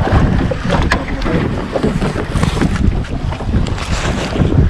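Strong wind buffeting the microphone, with choppy waves slapping against the hull of a small open boat.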